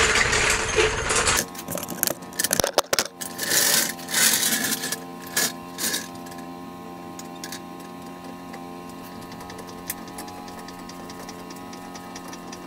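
Hydraulic floor jack being pumped by its long handle: irregular metallic clicks and clunks, loudest in the first half, then fainter ticks over a steady hum of sustained tones. It opens with a loud rustle that cuts off abruptly.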